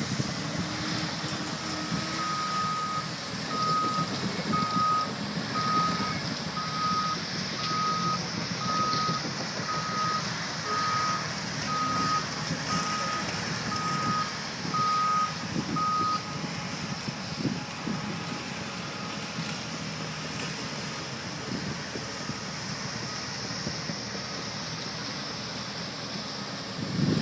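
Backup alarm on heavy equipment beeping steadily about once a second, clear for about fourteen seconds and then fainter, over a steady background of machinery and outdoor noise.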